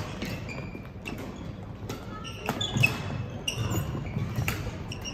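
Badminton play: sharp clicks of rackets striking a shuttlecock and short squeaks of shoes on the court floor, with a low murmur of voices underneath; the loudest hit comes just under three seconds in.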